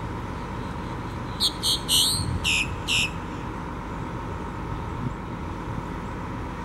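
Boat-tailed grackle calling: a quick series of about six loud, high notes, a few of them sliding down in pitch, starting about a second and a half in. Under it runs the steady engine hum of a tour bus.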